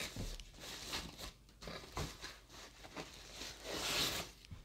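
Packaging rustling and crinkling as it is handled, with a few light knocks and a longer rustle near the end.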